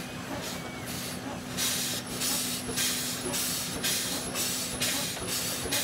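A.D. Baker steam traction engine running on the belt, its exhaust steam chuffing up the stack about twice a second. The chuffs get louder about a second and a half in, over a steady hum.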